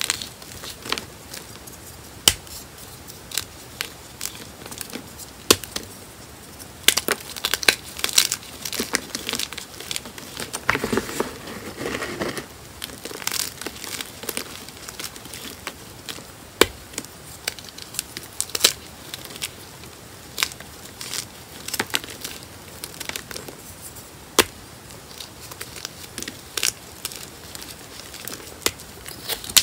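Gym chalk being crushed and crumbled by hand: dry, crisp crunching and crackling, with irregular sharp snaps as chalk pieces and painted chalk tiles break. A denser, louder stretch of crunching comes about eleven seconds in.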